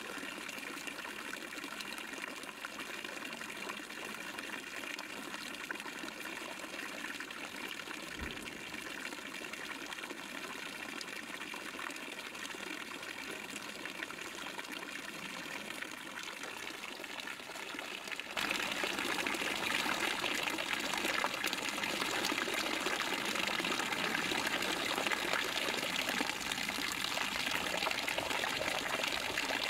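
Water running from bamboo spouts onto a capybara's back and splashing into the shallow pool below: a steady pouring and trickling that grows louder about eighteen seconds in.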